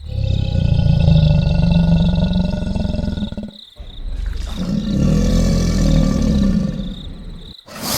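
Crocodile roaring twice: two long, deep calls of about three seconds each, with a short pause between them.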